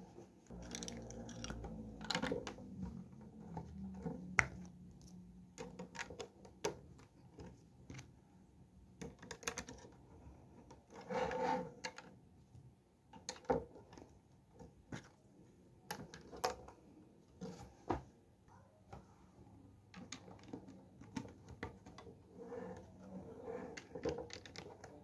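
Lego plastic bricks being handled and pressed together: scattered sharp clicks and snaps as pieces seat, with rubbing and scraping of plastic pieces between them, heaviest about eleven seconds in.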